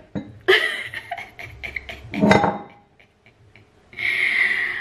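Kitchen utensils and containers handled while a marinade is made: a run of light clicks and clinks, a louder knock about two seconds in, then a brief steady hiss near the end.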